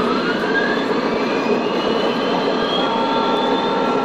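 Model trains running on the layout: a steady rushing noise with a rising whine at the start, and two steady tones coming in about three seconds in from a sound-equipped model locomotive.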